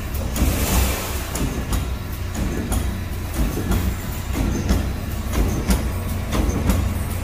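Automatic welded wire mesh machine running: a steady low hum under repeated metallic clicks and knocks, a few each second, as its welding heads work the wires.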